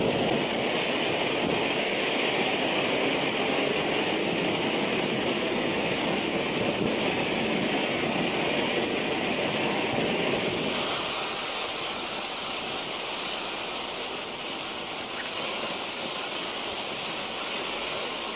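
Low-noise firework fountain spraying sparks with a steady hiss. The hiss jumps up at the start and drops a little about ten seconds in.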